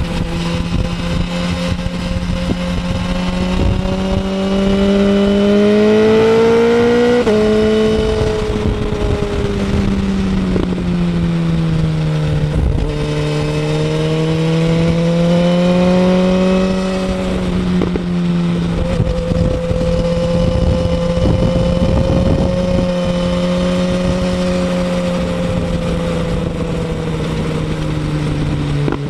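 2017 BMW S1000RR's inline-four engine through a Pro-Race aftermarket end can, heard while riding. Its note holds steady, rises over a few seconds, shifts abruptly in pitch about seven seconds in, then falls, dips and climbs again before levelling off.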